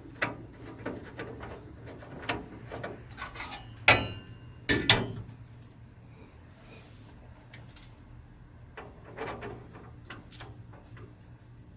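Clicks, knocks and rubbing of a truck grille being handled into place and its mounting nuts refitted, with two sharp knocks about four and five seconds in, the first with a short metallic ring.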